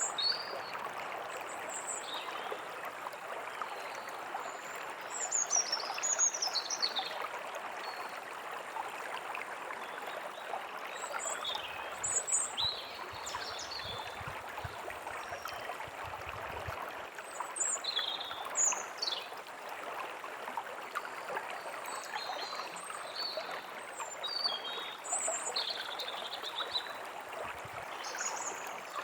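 A forest stream running steadily, with small birds chirping and calling on and off over it in short, high, often downward-sliding notes.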